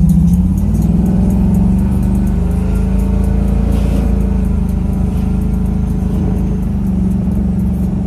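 Vehicle engine running steadily, its pitch easing up slightly about a second in and then holding.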